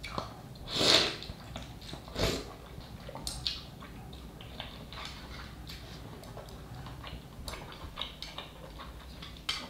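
Instant ramen noodles slurped off a spoon: two loud hissing slurps about one and two seconds in and a smaller one soon after, then soft chewing and small clicks of the chopsticks.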